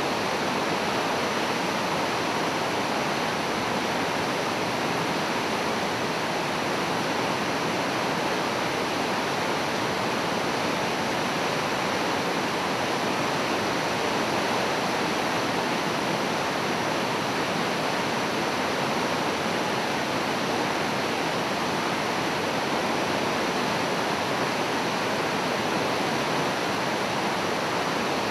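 Floodwater of the Oxtongue River rushing through its rapids: a steady, unbroken rush of churning whitewater.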